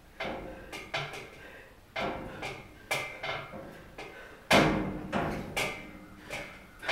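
Free-standing metal pull-up station knocking irregularly under a man's shifting weight as he hangs from the bar, about a dozen sharp knocks with the loudest about four and a half seconds in.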